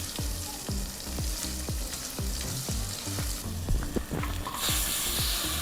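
Chicken browning in ghee in a pot, sizzling while it is stirred. The hiss swells and brightens a little past halfway, as more ingredients go in.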